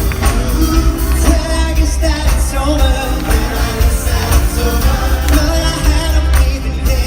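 Live pop music: a vocal group singing over a band with a strong, steady bass line.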